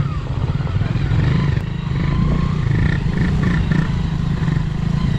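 Hero Splendor Plus's single-cylinder four-stroke engine running steadily at low speed in low gear, with a dense low pulsing note.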